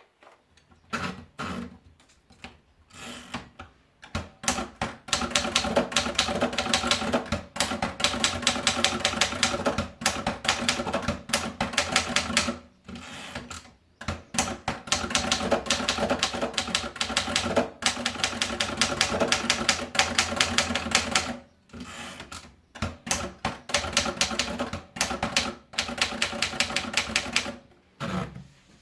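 Remington Ten Forty manual typewriter being typed on: fast runs of key strikes, several a second, broken by short pauses near the middle and about three quarters through.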